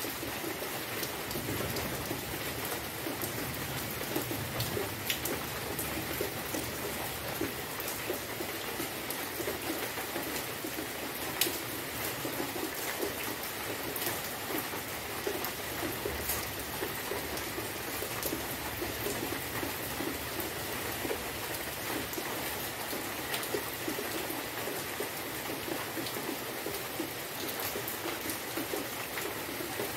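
Steady rain falling: an even hiss made of many small drop impacts, with no let-up.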